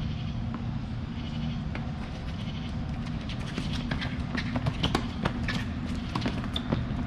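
Tennis ball struck back and forth in a doubles point: a serve, then a rally of sharp racket hits and shoe scuffs on the hard court, thickest in the second half. A steady low hum runs underneath.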